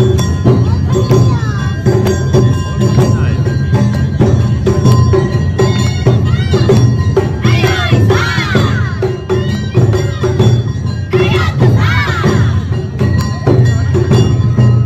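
Awa Odori festival music played live: taiko drums keep a steady marching beat under a clanging kane bell and a high melody. Two louder high wavering phrases stand out about eight and twelve seconds in.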